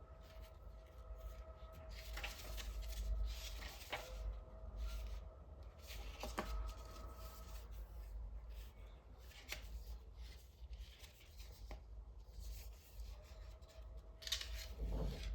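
A CD digipack being handled and opened by hand: cardboard and plastic rubbing and rustling, with several sharp clicks and taps, over a steady low hum.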